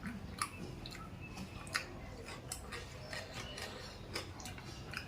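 A person chewing and eating with their mouth close to the microphone: a run of irregular small clicks and smacks.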